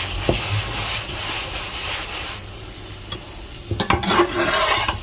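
Chapatis sizzling in oil on a hot pan. The sizzle fades about halfway through, and near the end there is a run of short knocks and scrapes as the flatbreads are worked in the pan.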